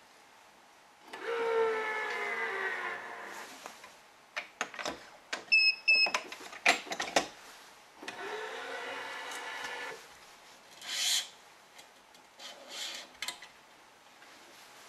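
The electronic tension head of a Gamma 6004 stringing machine runs twice, a steady motor whine of about two seconds each time, pulling the badminton string to tension. Between the pulls come sharp clicks and knocks from the clamps and string handling, and two very short high beeps.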